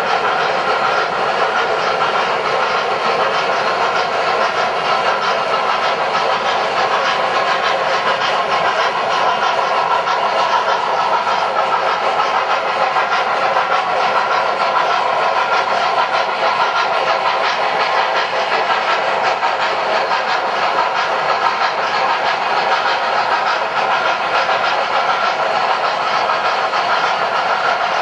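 O-gauge model steam trains running on a three-rail layout: a steady mix of the rolling noise of many freight cars' wheels on the track and the steam hiss of the locomotives' onboard sound systems.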